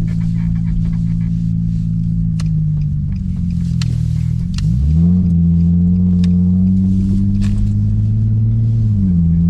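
Nissan 350Z's 3.5-litre V6 idling through test pipes and a deleted muffler, a steady deep exhaust note. About five seconds in, the note dips briefly, then rises and gets louder, and it eases back slightly near the end.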